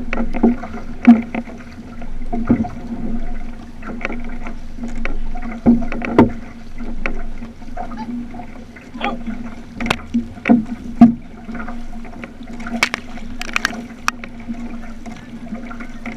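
Water washing and splashing along the hull of an outrigger canoe under way, with irregular sharp splashes and knocks from paddling and a steady low hum underneath.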